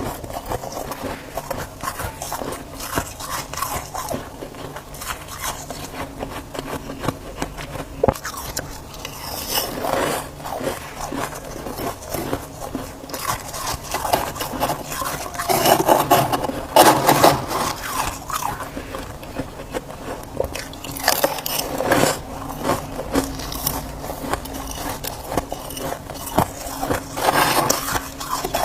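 Freezer frost crunching and scraping as it is eaten, a dense crackle with louder crunches every few seconds.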